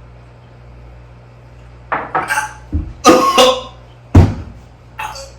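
A man coughing hard, a run of loud coughs and splutters starting about two seconds in, after swallowing a gulp of Boom Boom sauce mixed with water.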